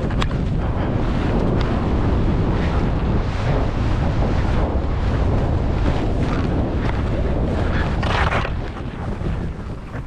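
Wind buffeting the microphone of a first-person camera as the skier runs fast downhill, mixed with the hiss of Atomic skis cutting through powder snow. A louder burst of snow spray comes about eight seconds in, then the rush dies down as the skier slows.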